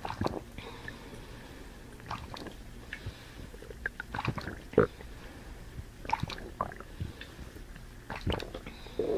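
A person eating banana close to the microphone: irregular wet chewing, biting and smacking sounds. A loud burp begins right at the end.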